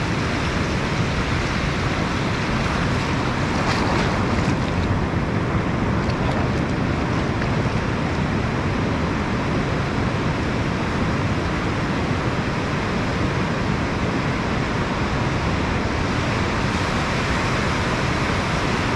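Ocean surf breaking and washing steadily across shallow water over a rocky reef.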